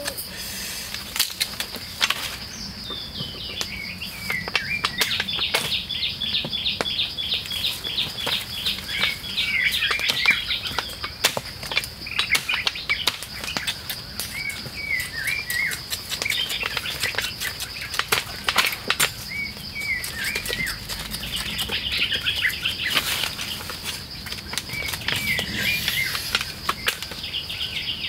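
A knife chopping cassava stems and roots, giving sharp irregular knocks. Under it run a steady high tone and quick runs of short high chirps.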